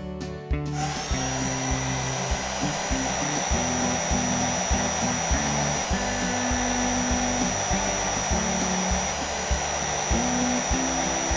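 Steady rushing-air machine sound effect of a cartoon cleaning tool, with a thin high whine, starting about a second in, over background music with a bass line.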